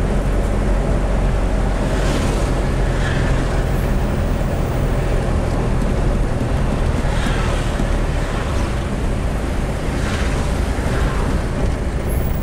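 Steady low rumble of engine and road noise heard from inside a moving vehicle, with a few brief swells of hiss as oncoming traffic passes.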